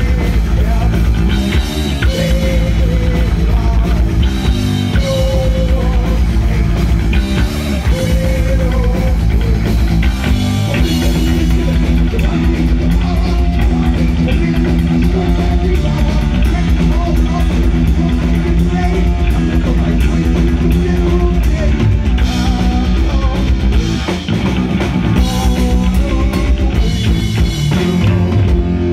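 Heavy metal band playing loud and live: electric guitars, bass and a driving drum kit.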